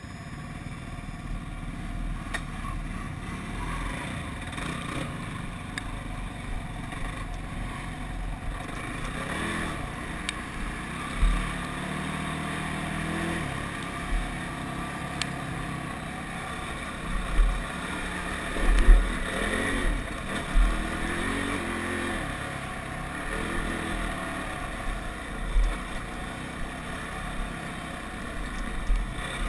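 ATV engine running under throttle on a dirt trail, its pitch rising and falling as it revs. Several loud low thumps come in the second half.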